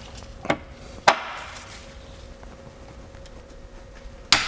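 Ratchet and socket straining on a rusted, seized plug in a Toyota automatic transmission pan: a metallic click, a sharp knock, then a loud sudden crack near the end as the plug breaks loose.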